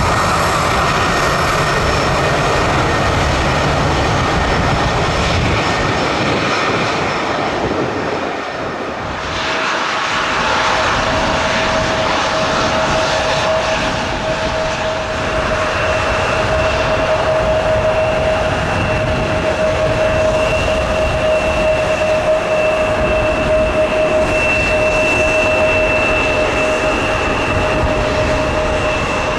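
Jet airliner turbofan engines running with a steady rushing noise. After a brief dip about a third of the way in, a steady whine sets in and holds, joined by a higher whine about halfway through.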